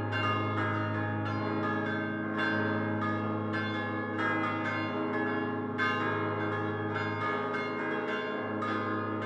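Church bells of St Andrew's, Luqa, cast by Prospero Barigozzi of Milan in 1928 and hung fixed, with clappers swung by hand, ringing a solemn full peal: strike after strike overlapping, each ringing on, over a steady deep hum from the largest bell.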